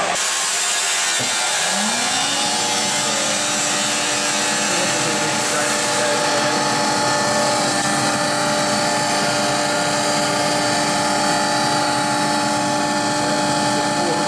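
Surtech TG-8 double-ended bench grinder's three-phase motor starting: a click about a second in, then a rising whine as it runs up to speed within a second or so. It then runs steadily with a hum over a constant hiss.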